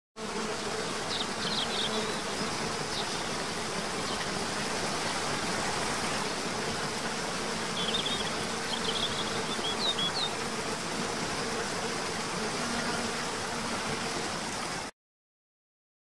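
Waterfall ambience: a steady rush of falling water under a low, even insect hum, with a few short high bird chirps about a second in and again around eight to ten seconds in. It cuts off suddenly near the end.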